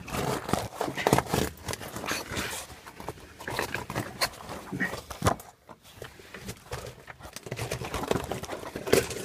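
A caver's clothing and body scraping and rustling against rough lava rock while squeezing through a very tight passage, with irregular scuffs and knocks.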